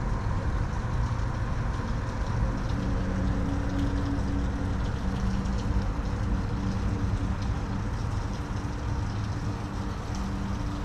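Steady low rumble of engine noise, with a humming tone that swells and fades, and faint ticking from a spinning reel being cranked.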